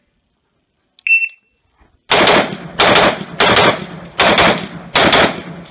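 Shot-timer start beep, then an AR-15 rifle firing in five quick pairs of shots (double taps), about ten shots in three seconds, each shot ringing on briefly after it.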